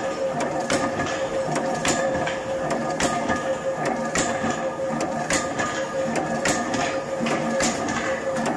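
Power punch press punching holes in a steel channel: a sharp metallic strike a little under twice a second, evenly paced, over the steady hum of the running machine.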